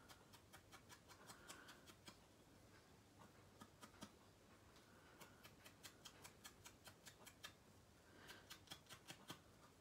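Faint, quick tapping as an ink dauber is dabbed around the edges of a small punched paper shape, several soft taps a second at an uneven pace.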